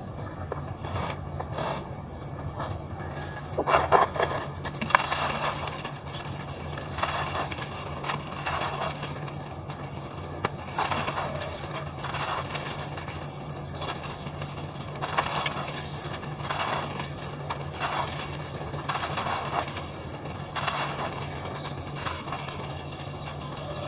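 Dry, gritty sand-cement chunks crushed and crumbled by hand, with loose crumbs and powder falling onto a dusty floor. The crunches come in repeated bursts every second or two, and the loudest come about four and five seconds in.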